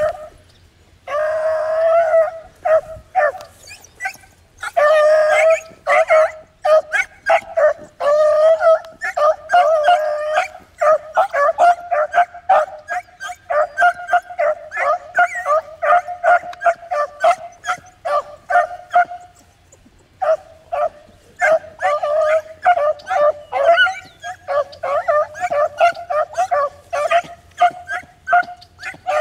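Beagles baying as they trail a rabbit's scent line. A few long drawn-out bawls open the sequence, followed by a rapid, near-continuous string of short chop barks that pauses briefly about two-thirds of the way through.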